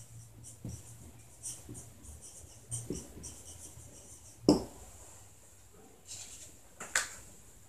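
Marker pen writing on a whiteboard: faint squeaky strokes as a word is handwritten, with one louder knock about halfway through.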